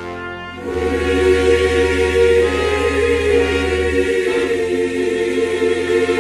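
Music: a sustained choir-like chord, with a deep bass note that comes in under it about a second in and drops away about two-thirds of the way through.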